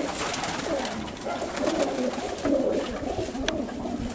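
A loft full of domestic pigeons cooing together, many overlapping low coos at once, with a few sharp clicks.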